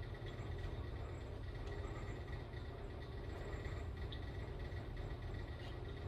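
Steady low background rumble with a faint high hum, over which come a few faint, light clicks: a small metal hook tool picking at a hardened old O-ring inside a Tecumseh carburetor body.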